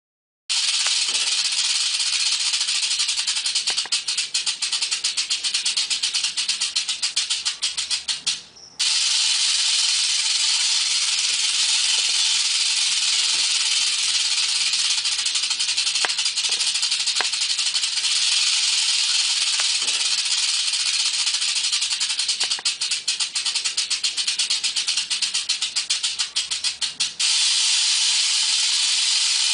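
Rattlesnake rattle buzzing continuously as a dry, high, hiss-like buzz. It starts about half a second in and breaks off briefly about a third of the way through. In stretches the separate rapid clicks of the rattle come through.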